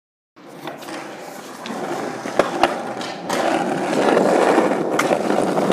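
Skateboard wheels rolling over rough asphalt, a gritty rumble that grows louder, broken by a few sharp clacks, two close together about halfway through and one more near the end.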